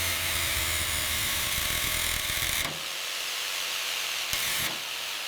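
Steady hissing noise of workshop tool work, changing abruptly about two and a half seconds in and again near the end.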